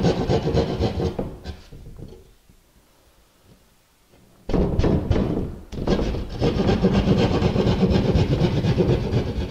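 Drywall jab saw cutting through a sheet of drywall in quick back-and-forth strokes, with a pause of about two seconds near the start before the sawing resumes.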